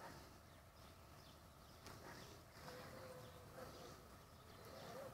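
Near silence: faint open-field ambience with scattered faint high chirps.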